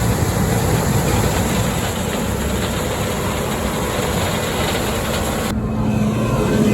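Combine harvester running while harvesting corn, a steady heavy machine noise. About five and a half seconds in, the hiss cuts off suddenly, leaving a steadier low hum.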